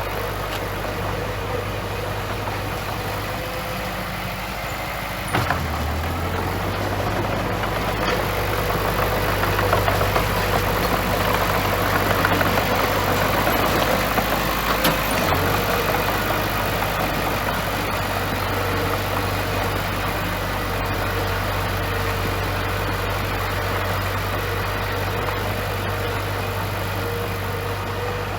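Bulldozer's diesel engine running steadily while pushing sand, growing louder and busier for several seconds in the middle as it works, with one sharp clank about five seconds in.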